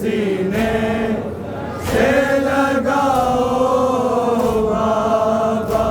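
Voices chanting a noha, a Shia lament, in long held and gliding notes, with a sharp slap roughly every second and a half in time with the chant.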